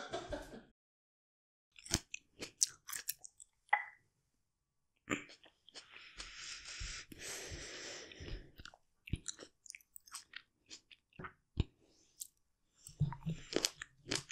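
Close-miked chewing of stinking toe fruit: scattered sharp crunches and crackles with silent gaps, and a few seconds of breathy hissing about halfway through.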